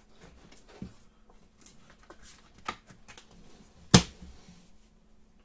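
Trading cards handled by hand: soft sliding and light clicks as cards are shifted, with one sharp click about four seconds in.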